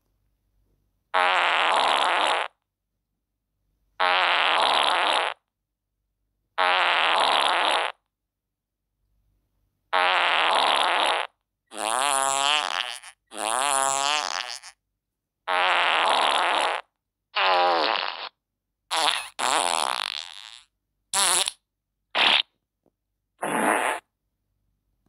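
A series of about a dozen farts separated by short silences. The first three are long and alike, the middle ones slide up and down in pitch, and the last few are short.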